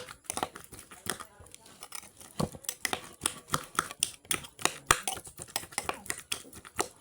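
Eating mashed avocado and sugar from a glass with a spoon: a run of irregular small clicks and taps, several a second.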